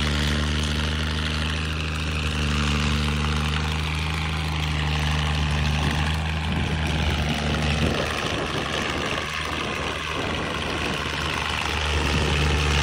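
Tractor engine running steadily, its even low note turning rougher about two-thirds of the way through.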